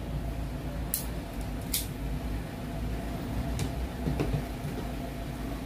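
About four light clicks and knocks from handling a steel tape measure and a metal compression driver on a table, over a steady low background hum.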